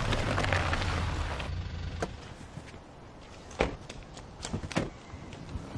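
A car slowing to a stop, its engine and tyre noise fading away over the first second and a half. Then come a few sharp clicks and knocks as the driver's door is unlatched and opened.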